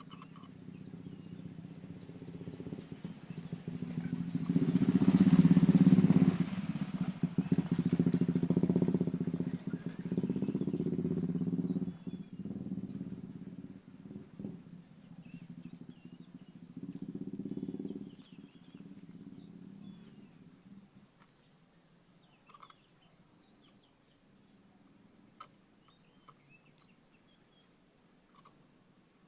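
A motor vehicle's engine passes: it swells to its loudest about five seconds in, fades after about twelve seconds and swells briefly again near eighteen seconds. Under it, insects trill steadily in a high pulsing buzz, and a few faint bird chirps come near the end.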